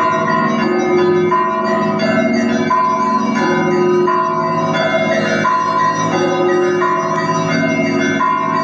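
Russian Orthodox monastery bells ringing a zvon: several bells of different pitch struck by their clappers in a repeating pattern. The higher bells come round roughly every one and a half seconds over the steady hum of the larger bells.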